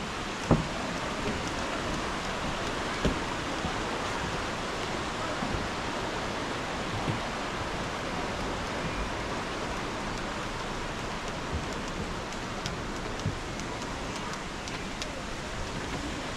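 Steady rushing of a shallow stream running over rocks, with a few short thumps, one of them about half a second in.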